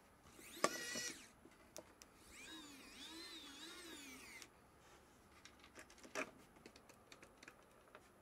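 Small cordless electric screwdriver driving a screw into a plastic tail mount. A short faint whir comes about half a second in, then a longer whir of about two seconds whose pitch wavers up and down as the screw takes up, then a single light click.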